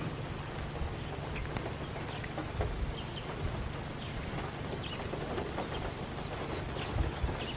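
Short, high chirping calls, several a second, over a steady low rumble.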